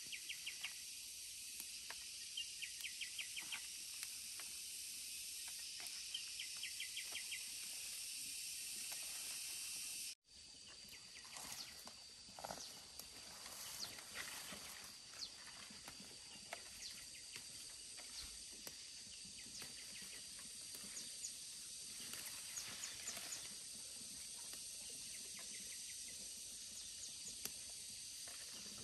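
Steady high insect chorus, with short trains of rapid chirps three times in the first few seconds. About ten seconds in the sound cuts, and the hum goes on with scattered light clicks and rustles of handling.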